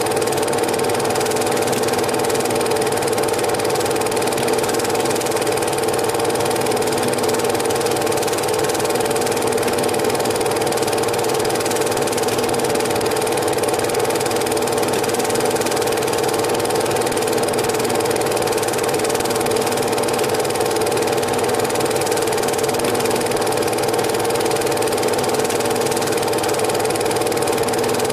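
Cine film projector running steadily: an even mechanical whirr with a constant hum.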